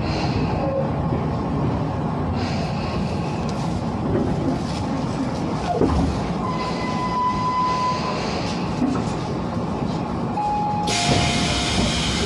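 Tobu 10030-series electric train rolling slowly along the platform to a stop, with a steady rumble and a brief squeal near the middle. About eleven seconds in, the doors open with a loud hiss.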